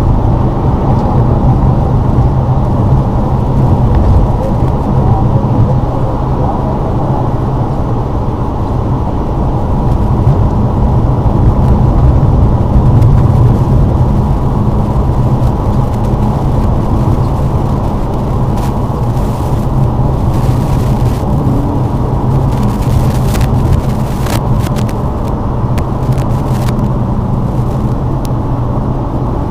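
Lada Vesta driving on a snowy road: a steady, low engine and road noise, with a run of short sharp knocks or clicks about two-thirds of the way in.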